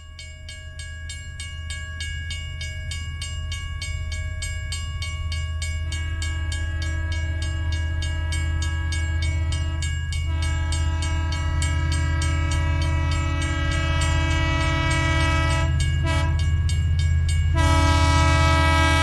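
Train passing with a heavy low rumble that swells over the first few seconds, wheels clicking about three times a second. From about six seconds in, a train horn sounds in long blasts, broken briefly twice and louder again near the end.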